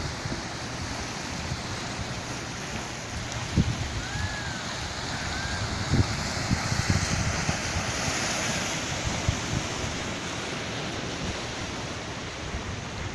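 Sea surf washing and breaking against a rock breakwater, with wind buffeting the microphone in low gusty thumps. Two faint high chirps come about four to five seconds in.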